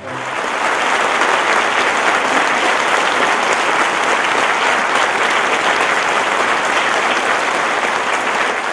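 Theatre audience applauding, swelling up within the first half second and then holding steady.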